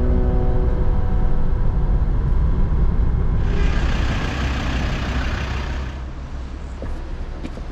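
Low, heavy vehicle engine rumble, with a hiss lasting a couple of seconds midway through; the rumble drops away after about six seconds, leaving a few faint clicks near the end.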